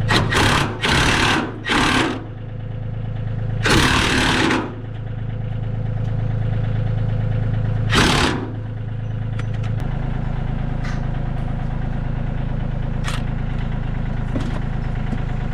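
Earthquake impact wrench fired in five short bursts, driving a trailer wheel's bolts, the longest about a second. Under it, an engine idles steadily, changing tone about ten seconds in.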